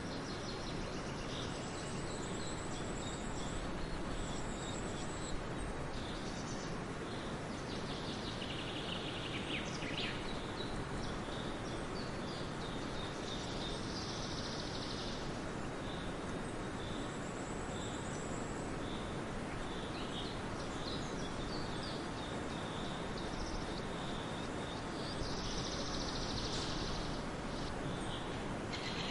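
Small birds chirping and twittering on and off over a steady background hiss.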